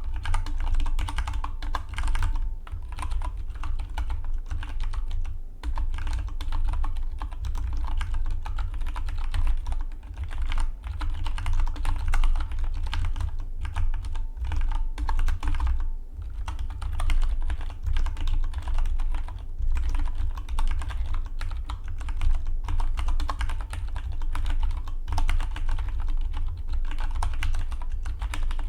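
Typing on a Dygma Defy split mechanical keyboard: fast, continuous keystrokes with a few brief pauses.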